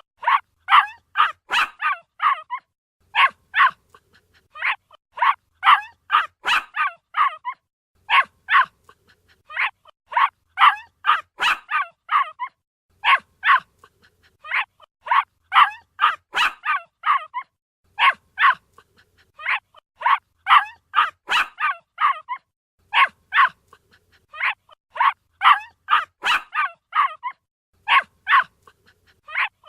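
A puppy barking: high-pitched yaps in quick runs of three to eight, separated by short pauses, over and over.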